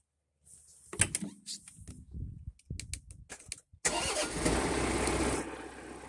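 John Deere compact tractor's diesel engine being started: a few clicks and knocks first, then about four seconds in the starter cranks and the engine catches, settling to a steady idle near the end.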